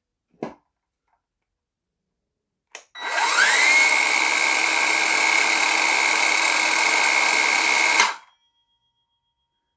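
Evolution R165 18V cordless 165 mm circular saw: after two short clicks, the motor starts about three seconds in with a rising whine. It settles into a steady high whine for about five seconds, then stops abruptly.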